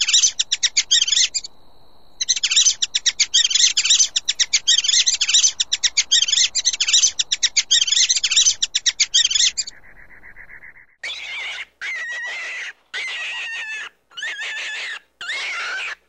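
Spectral tarsier calling: rapid, high-pitched pulsed chirping trills with a short break about two seconds in, stopping about ten seconds in. Pet rats then make a series of short squeaky bursts with brief pauses between them.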